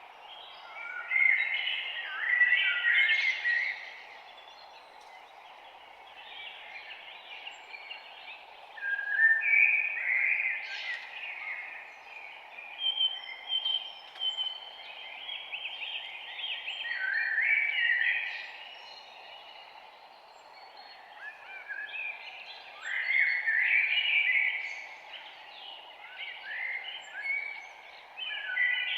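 Songbirds chirping and singing, several overlapping phrases of quick high notes that come in bursts every few seconds, over a steady faint background hiss.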